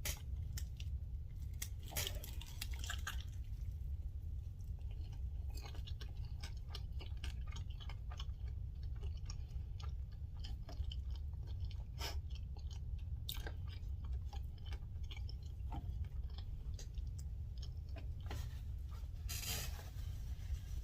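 A person biting into and chewing a bacon-topped burger close to the microphone: irregular wet mouth clicks and smacks throughout, over a steady low background hum.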